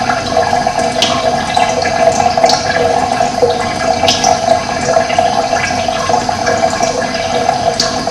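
Running water rushing steadily, with a few short, high, falling bird chirps over it.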